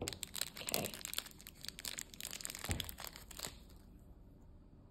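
Thin black plastic blind-bag pouch crinkling and tearing as it is ripped open by hand and the enamel pin pulled out. A dense crackle for about three and a half seconds, with a soft knock about two and a half seconds in, then only faint handling.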